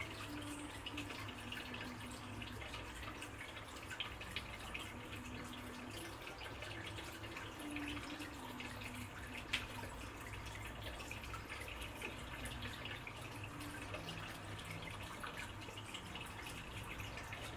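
Water dripping and trickling steadily, with many small drips.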